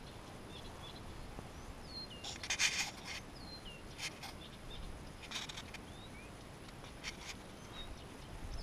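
Small birds calling in short, falling chirps throughout, with a few brief rustles, the loudest about two and a half seconds in.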